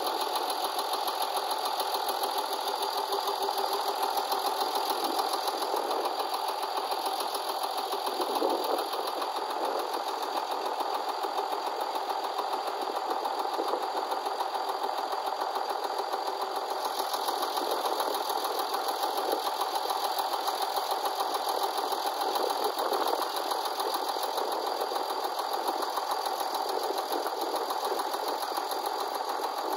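Hesston 1880DT tractor's diesel engine idling steadily.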